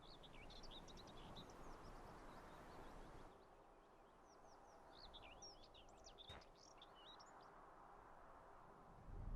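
Faint birdsong: many quick, high chirps in two spells, over a low steady hiss of outdoor ambience. A single sharp click about six seconds in.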